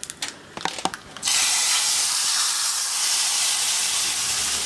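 Hot ghee tadka with cumin, mustard seeds, dried red chillies and curry leaves poured into boiled toor dal: a few light clicks, then about a second in a sudden loud sizzle that holds steady as the hot ghee hits the dal.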